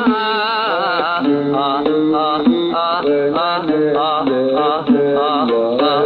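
A sung note held with vibrato ends about a second in, and the oud takes over with a run of quick plucked notes, a riq beating time underneath.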